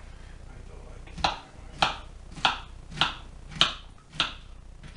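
Kitchen knife chopping pineapple on a wooden cutting board: about seven sharp knocks of the blade hitting the board, evenly spaced about one every half second, starting about a second in.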